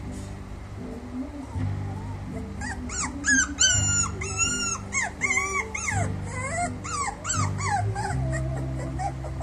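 Dachshund puppy whimpering: a run of high-pitched, wavering whines starting about two and a half seconds in and fading out over the next five seconds, over background music with steady low chords.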